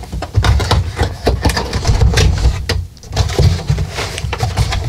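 Cardboard box being opened by hand: the flaps crackle and scrape, with irregular dull thumps and knocks as the box is handled, pausing briefly about three seconds in.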